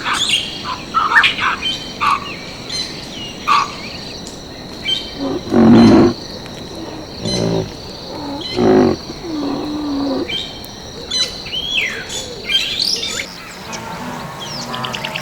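Birds chirping and calling in short, varied phrases over a steady high insect drone. An animal gives two louder, lower calls, about six and nine seconds in.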